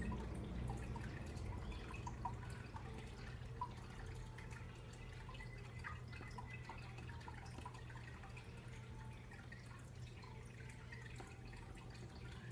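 Faint room tone: a steady low hum with scattered small, short ticks.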